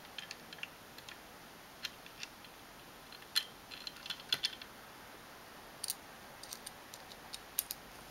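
Scattered small, sharp metallic clicks and ticks of a multitool's screwdriver bit working a tiny screw into a plastic 3D-printer printhead, bunched a little after three seconds in and again near the end.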